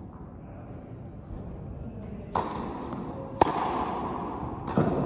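Tennis ball struck by rackets and bouncing on the court: three sharp pops, roughly a second apart, each ringing on in the echo of a large indoor hall.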